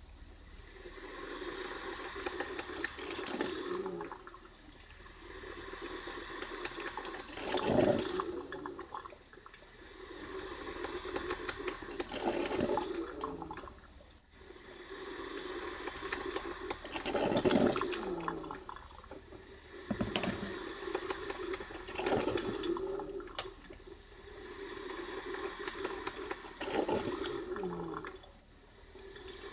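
Braun 10-cup drip coffee maker brewing: water gurgling and hissing as the heater pushes it up to the filter, in surges that swell every few seconds.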